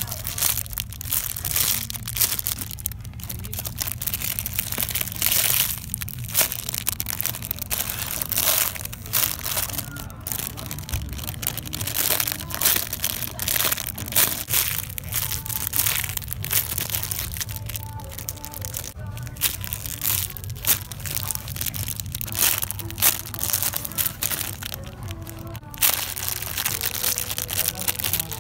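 Clear plastic bags around foam squishy toys crinkling and crackling in irregular bursts as they are handled and squeezed.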